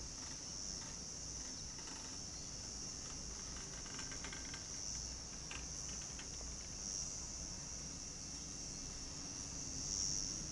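Insects chirping in a steady high-pitched chorus that swells and fades every couple of seconds.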